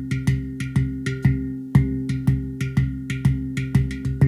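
Background music: a steady beat of short, knocking percussion strikes, about three a second, over held low tones.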